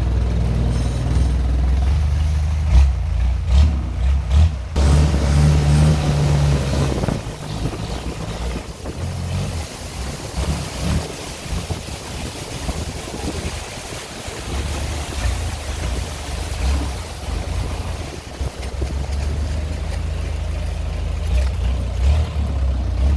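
Engine of a narrow covered canal boat running under way, with water rushing along the hull. The engine's low note is steady at first, quieter through the middle, and loud again near the end.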